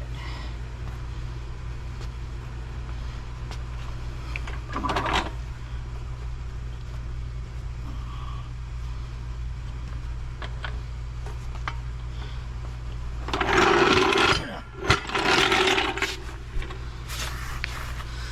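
Steady low workshop hum, with a brief scrape about five seconds in and a louder stretch of scraping and knocking near the end, from working the jack and wooden blocks under a lathe.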